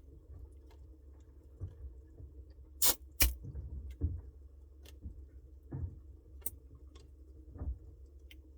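Samsung Bespoke refrigerator running with a steady low hum, with irregular sharp clicks and ticks over it; the two loudest come close together about three seconds in.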